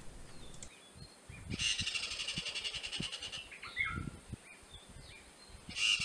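African bush squirrel chattering: a rapid, high-pitched buzzing trill lasting about two seconds, starting again near the end, with a few short chirps in between.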